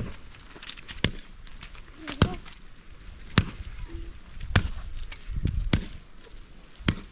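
Steady, evenly paced blows of a tool striking a hard material, about seven sharp hits a little over a second apart.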